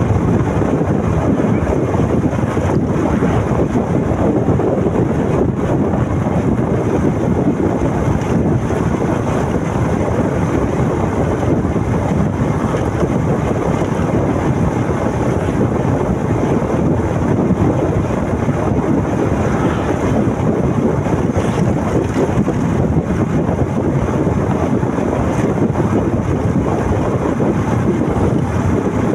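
Wind rushing over the microphone of a moving motorcycle, a loud, steady rush of noise with the ride's engine and road noise blended in.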